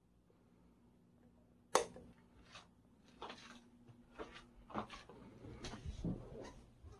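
Scattered rustles and light knocks from a phone being carried and handled while someone moves about a small room, with one sharp click just under two seconds in, over a steady low hum.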